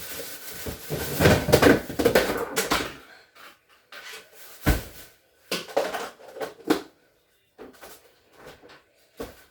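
Refrigerator shelves and drawers being pulled out and handled while searching for a dropped screw. About three seconds of continuous rattling and scraping, then several separate sharp knocks and clatters.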